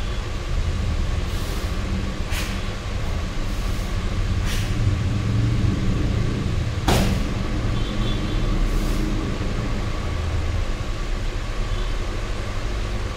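A karateka performing the kata Seiyunchin barefoot on foam mats, making a handful of short, sharp sounds with the strikes and stances. The loudest comes about seven seconds in, all over a steady low background rumble.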